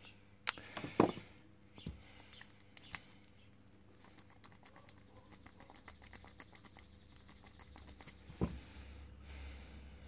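Yale 8 key blank being worked in the keyway of an Ilco 30 mm padlock during impressioning: a run of quick, light metallic clicks as the blank is rocked against the pins. A few separate clicks come before it, the loudest about a second in, and one more knock near the end.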